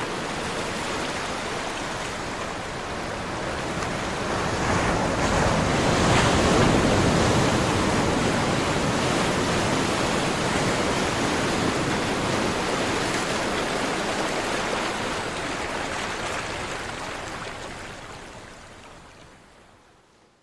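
Sea surf: the wash of waves swells to its loudest about six seconds in, then slowly fades away near the end.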